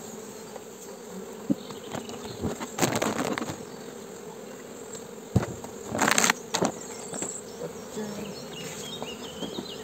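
Honeybee colony buzzing steadily as the hive is opened, with knocks and rustles from the hive roof and the inner cover sheet being lifted off; a short noisy rustle about six seconds in is the loudest moment.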